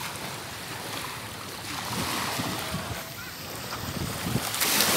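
Small waves washing up onto a sandy beach, with wind buffeting the microphone; a wave washes in louder near the end.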